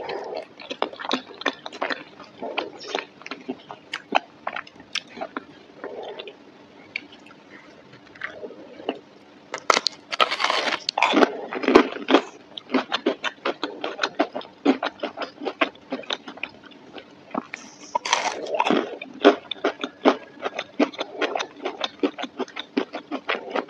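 Close-miked chewing and biting of macaroni and cheese and breaded chicken nuggets: a steady run of wet mouth clicks. There are louder, denser stretches of biting and chewing about ten and eighteen seconds in.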